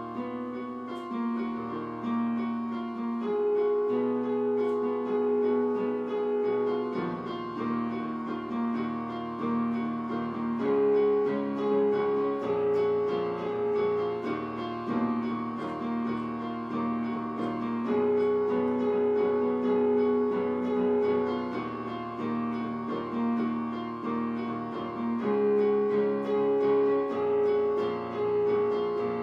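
Electronic keyboard on a piano voice, played two-handed: a piano arrangement of a synthpop song, with held chords over low bass notes that change every few seconds.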